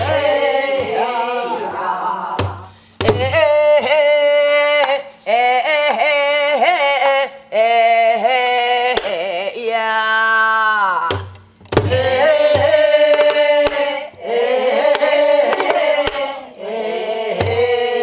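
A woman sings a Korean shaman-ritual song from Jindo ssitgimgut in long phrases of held, wavering notes, and beats a buk barrel drum with a stick, giving a low stroke now and then between and under the phrases.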